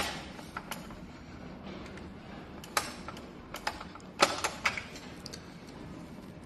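Scattered sharp clicks and knocks of hands working on a treadmill's parts, the loudest cluster a little past the middle.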